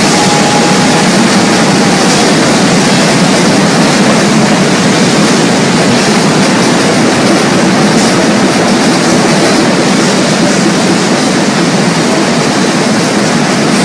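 Hundreds of drum kits played together, about 800 drummers at once: a loud, dense, continuous wash of drums and cymbals with no single beat standing out.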